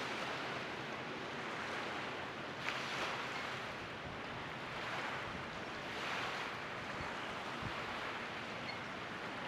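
A steady wash of noise from a distant parade of motorboats and the water they stir up on a lake, swelling a little a couple of times.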